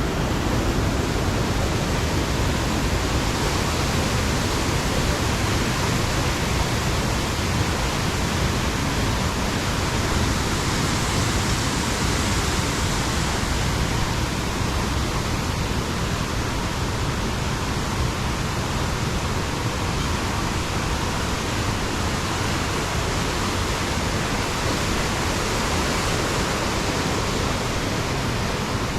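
River water rushing steadily, a continuous even hiss of flowing water.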